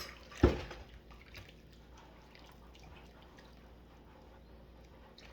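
A sharp thump about half a second in, then faint drips and small splashes of water as a dish is rinsed in a bowl of water.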